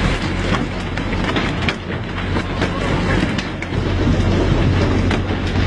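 A fishing boat's engine runs steadily under a rush of water spray, with frequent sharp knocks and slaps on deck as crew jerk tuna aboard on poles.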